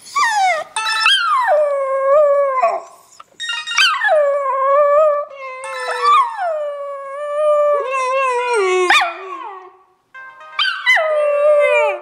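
Miniature dachshunds howling along with a Motorola mobile phone ringtone. The howls are long and slide down in pitch before levelling off, in four bouts with short breaks between them. The ringtone's flat electronic notes are heard briefly beneath them.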